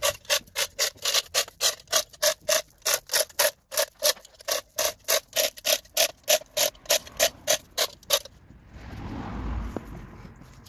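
Hand-operated chain block being worked under load to haul out a tree stump: its ratchet pawl clicks rhythmically, a little over three times a second, for about eight seconds. The clicking then stops while a low rushing noise rises and fades.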